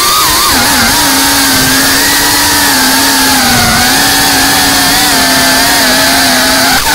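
FPV freestyle quadcopter's electric motors whining steadily and loudly, the pitch wavering slightly with throttle and dipping briefly near the end.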